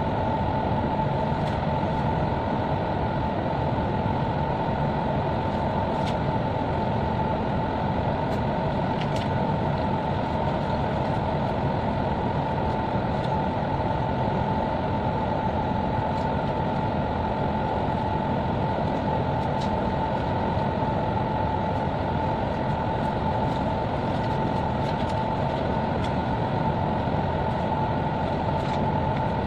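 Steady mechanical drone of a ship's machinery heard on board: an even low hum with a constant high whine over it, unchanging throughout, with a few faint ticks.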